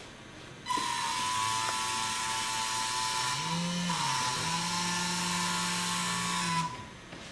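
Small electric motors on the Surveyor YARB blimp's gondola spinning its propellers: a steady high whine with hiss. It starts abruptly about a second in, changes pitch briefly near the middle, and cuts off sharply near the end.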